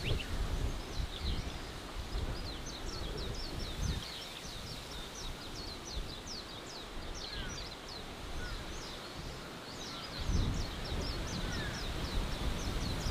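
Forest birds chirping: a dense run of quick, high, downward-sweeping chirps, with a few softer lower whistles. A low, gusty rumble sits under them at the start and returns about ten seconds in.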